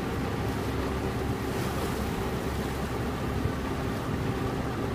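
Motor launch under way: its engine runs with a steady low drone while water rushes along the hull, with wind on the microphone.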